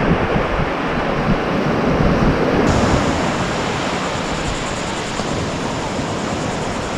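Ocean surf washing on the beach with wind on the microphone, a steady rushing noise. The hiss turns brighter suddenly about two and a half seconds in.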